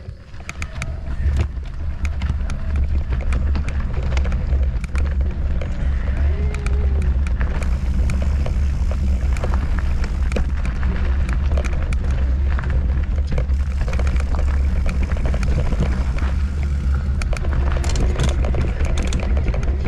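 Wind buffeting the microphone of a camera on a moving mountain bike, with the rattle and crunch of the tyres and bike over the trail; it builds over the first couple of seconds as the bike picks up speed.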